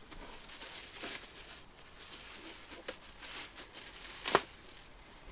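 Packaging being handled and rustled during an unboxing, in soft swells, with one sharp click or tap a little past four seconds in.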